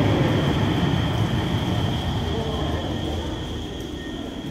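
Cologne Stadtbahn light-rail train running out along the underground platform, its rumble with a high steady whine above it growing steadily fainter as it leaves.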